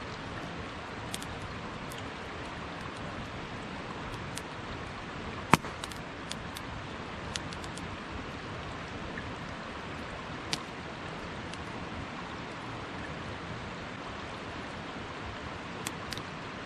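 Wood campfire crackling, with sharp pops at irregular moments, the loudest about five and a half seconds in, over a steady rush of water from the mountain stream.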